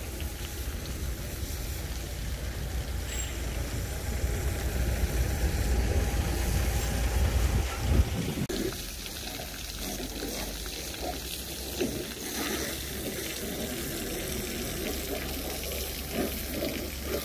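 Water running and splashing as a vehicle is washed, over a low rumble that drops away about halfway through.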